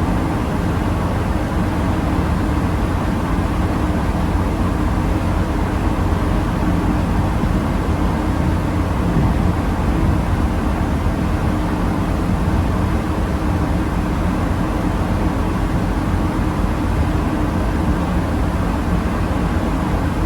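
Car ferry underway: a steady low rumble from the ship's engines, with an even hum and noise over it.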